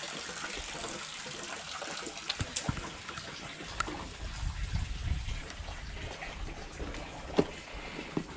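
Water running from a garden hose, a steady trickling and splashing onto a fish-cleaning table, with a few small knocks and clicks.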